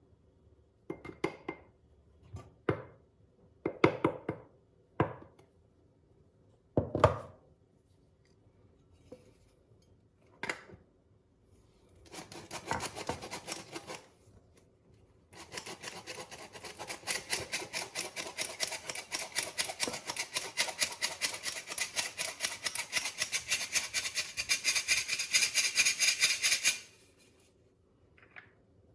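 A kitchen utensil worked against a bowl while mixing ingredients. A few separate knocks and clinks come first, then a run of rapid, even scraping strokes that grows louder and stops suddenly near the end.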